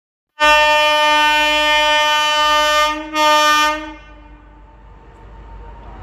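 Horn of an Indian Railways WAP7 electric locomotive: one long, steady blast of about two and a half seconds, a brief break, then a shorter second blast. Afterwards the low rumble of the approaching train slowly grows louder.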